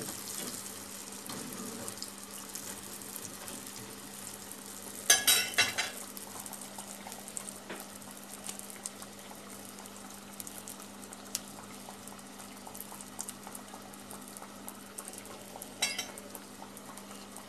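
Pişi dough frying in hot oil in an enamel pot: a steady sizzle with fine crackling. About five seconds in, a brief metal clatter of the tongs, and one more click near the end.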